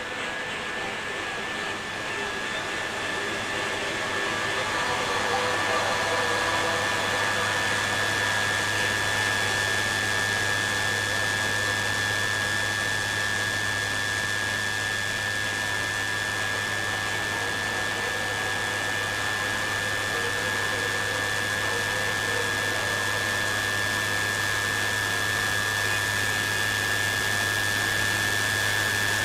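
A loud, steady rushing noise, like a machine or an electronic drone, with a constant high whine and a low hum under it. It swells a little over the first few seconds, then holds level.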